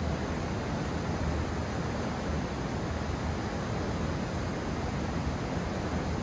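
Steady rushing of a river, an even noise with a low rumble underneath and no separate events.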